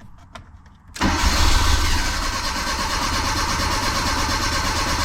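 A Fiat X1/9's four-cylinder engine cranking on the starter, starting abruptly about a second in and carrying on steadily without catching. It won't fire because the fuel pump has no power with the windshield-wiper fuse pulled.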